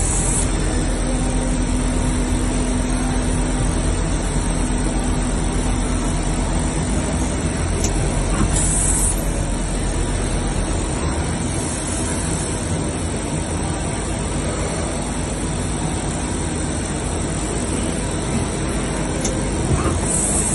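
Mazak Quick Turn Nexus 100-II MSY CNC lathe running: a loud, steady machine noise with a low hum, a held tone through the first several seconds, and a few brief high hisses now and then.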